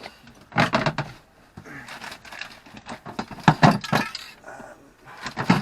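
Metal hand tools such as spanners and a wrench clinking and clanking, in several irregular bursts of clatter with the loudest clanks about half a second in, around three and a half seconds in and near the end.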